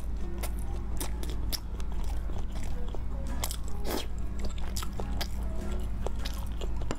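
Close-miked eating sounds: a person chewing a mouthful of food, with many short sharp crisp clicks and smacks, over background music and a low hum.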